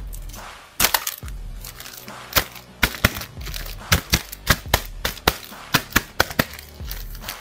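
Clear plastic bag crinkling and crackling in irregular sharp bursts as a bagged plastic action figure is handled.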